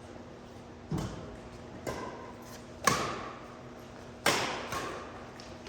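Badminton rackets striking a shuttlecock four times, about a second apart, in a rally. Each hit is a sharp crack that echoes, the last two the loudest.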